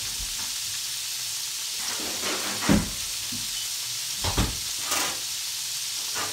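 Flour-breaded chicken gizzards sizzling steadily in hot oil in a skillet, a continuous frying hiss. A few brief louder sounds come near three seconds in and twice between four and five seconds.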